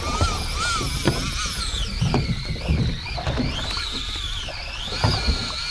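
Fishing reel drag whining as line is pulled off, its pitch rising and falling with the pull, with a few knocks underneath.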